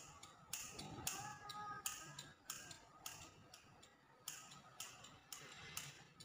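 Pair of scissors snipping shut again and again close to long hair, about fifteen quick snips, roughly two a second.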